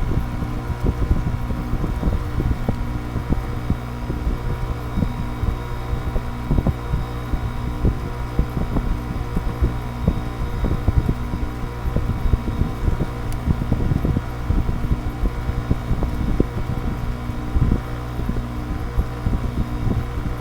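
GE 5,050 BTU R-22 window air conditioner running shortly after a cold start in 2-degree weather: the compressor hums steadily under the fan's whoosh, with irregular low thumps throughout. Its compressor oil is still thick from the cold.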